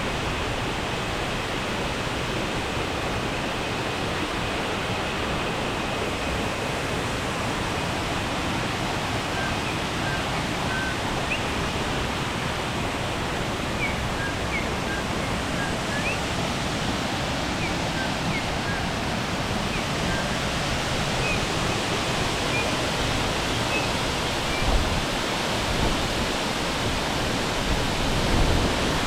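Waterfall's water rushing steadily and loudly. Faint short high chirps are scattered through the middle, and there are a couple of low thumps near the end.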